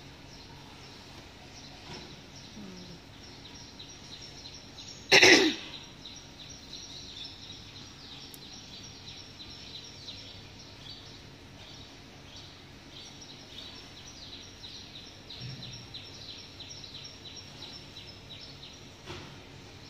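Small birds chirping rapidly and continuously in quick high falling notes, starting about five seconds in. A single loud, short cough or throat-clear cuts in just as the chirping begins.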